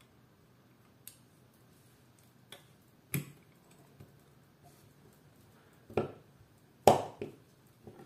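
Sharp metal clicks and knocks, irregularly spaced, about six or seven in all, the loudest two near the end. They come from the parts of a Colt Trooper Mk III revolver being handled by hand as its side plate is seated back onto the frame.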